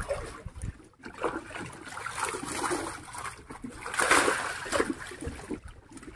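Water splashing and trickling in irregular surges, with the loudest splash about four seconds in.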